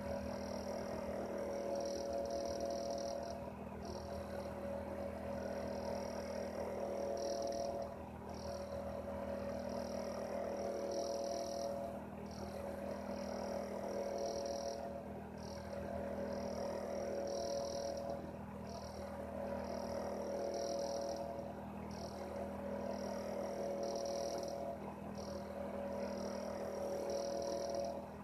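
A room heater running: a steady hum, with a higher buzz that drops out and returns and a level that swells and dips about every four seconds.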